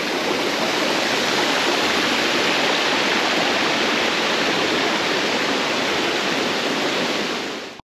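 Waterfall and the shallow rocky stream below it: a steady rush of falling and running water, which dips slightly and then cuts off abruptly near the end.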